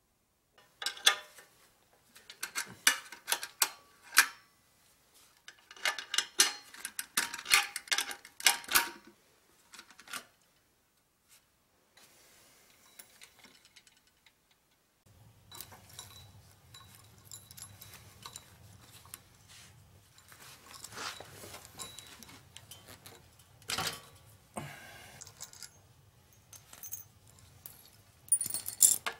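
Metallic clicking and jangling of bicycle drivetrain parts (the chain and the cog on the generator's motor spindle) being handled, in two busy bursts. Later a faint steady low hum comes in, with scattered lighter clicks and a couple of sharper ones.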